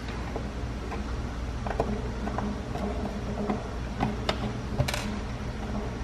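Screwdriver working the screws of a GFCI outlet's cover plate: scattered light clicks and scrapes of metal on metal, over a steady low hum.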